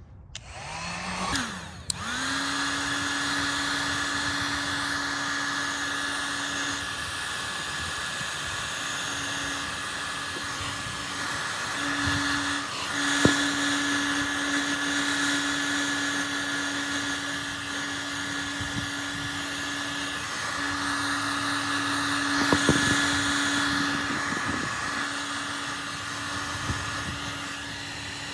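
Heat gun switched on: its fan spins up with a rising whine in the first two seconds, then it blows steadily with a constant hum and whine.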